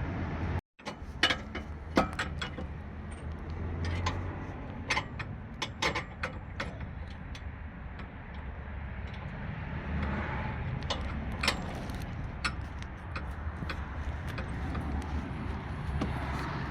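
Scattered sharp metallic clicks and clinks at irregular intervals over a steady low hum, after a brief dropout about half a second in.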